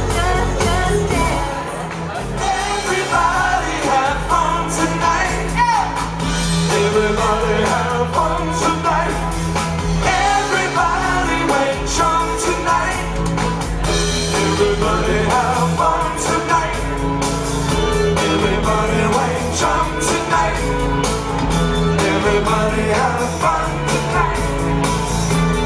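Rock band playing a song: a woman singing lead over electric guitar, bass guitar and drums keeping a steady beat.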